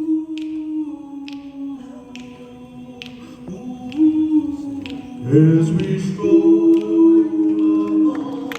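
Live doo-wop vocal group singing close a cappella harmony in held chords, with a low voice sliding upward about five seconds in. A sharp snap falls on each beat, a little under once a second. Audience applause breaks in at the very end.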